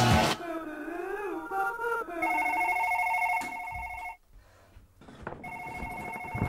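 Electronic telephone ringing with a fast trilling warble on a few fixed tones. It rings for about a second, pauses for about two seconds, then rings again near the end.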